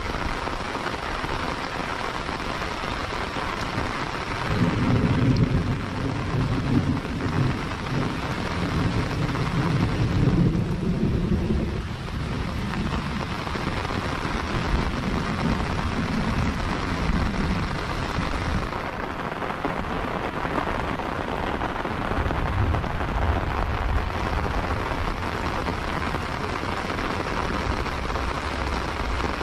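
Heavy rain falling steadily on paving and vegetation, with a long low rumble of thunder from about four seconds in until about twelve seconds in, and a fainter low rumble again in the last several seconds.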